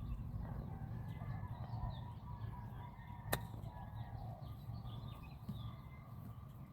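A single sharp click of a golf club striking the ball about three seconds in, over quiet outdoor ambience with faint bird chirps.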